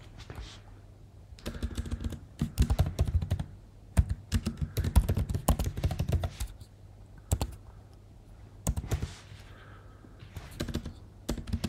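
Typing on a computer keyboard: a quick run of keystrokes, then a few scattered key presses near the end.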